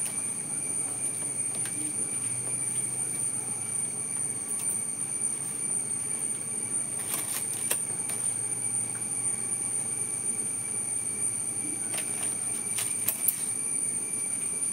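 Steady, high-pitched drone of insects, with a few short crackles as a large banana leaf is handled, around the middle and again near the end.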